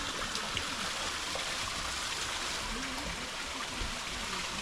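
Spring-fed mountain water running steadily, an even rushing hiss with no breaks.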